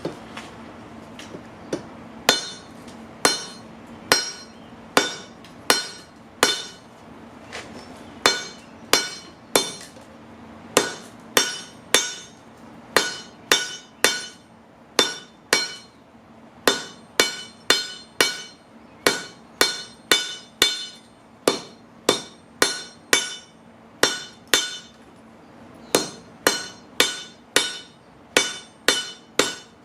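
Hammer blows on a railroad-track anvil while tapering a rail spike, about two strikes a second, each leaving a short metallic ring. The hammering stops briefly twice, then picks up again.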